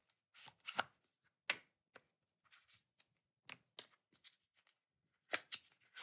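Small cardboard product box being unpacked by hand: a scattered series of faint, short scrapes and taps as the inner box slides out of its sleeve and the black inner box is opened.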